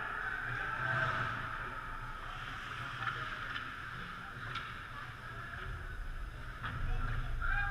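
Ice hockey play on the rink: skate blades scraping and hissing on the ice, with a few short sharp clicks of sticks and puck.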